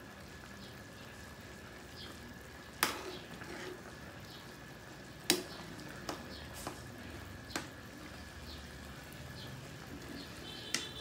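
Chicken wings sizzling in sauce in a wok-style pan while a spatula stirs and turns them, with a steady hiss and a few sharp clacks of the spatula against the pan, the loudest about three and five seconds in.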